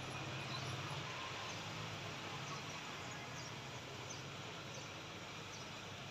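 Steady background noise with a constant low hum and a few faint, short high chirps.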